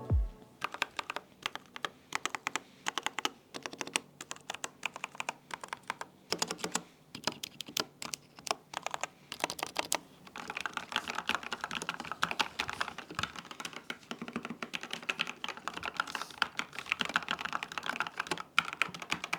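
Typing on a mechanical keyboard fitted with Utyping Neko Touch keycaps. For the first half, separate keystrokes come at an uneven pace; from about halfway they become fast, continuous typing.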